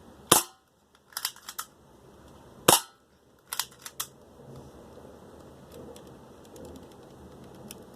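Two shots from a 1911-style BB pistol, about two and a half seconds apart. Each shot is followed a moment later by a few quick, lighter ticks as the BB strikes and bounces off the metal target and around the room.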